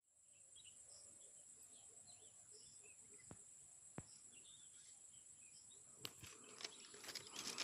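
Faint rural outdoor ambience: scattered small bird chirps over a steady high insect whine. There are two single clicks in the middle and a patch of clicks and crackles near the end.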